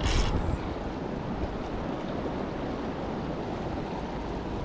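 Steady rush of a fast-flowing river, with wind buffeting the microphone. A brief scratchy noise comes right at the start.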